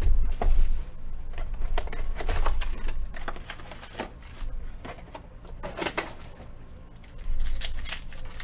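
Trading cards and packs being handled and flipped through, an irregular run of light clicks and rustles over a low steady hum.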